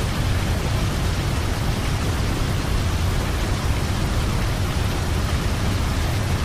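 A steady, loud rushing noise across all pitches with a deep rumble underneath, cutting off abruptly near the end.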